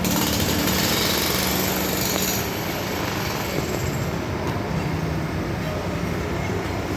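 Heavy road-works machinery with its engine running steadily, a low hum under a rough mechanical noise, brighter and hissier for the first couple of seconds.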